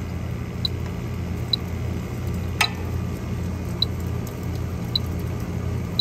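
Electronic refrigerant leak detector beeping at a slow, even rate of about one short high beep a second, over a steady low machine hum. A sharp click comes about halfway through.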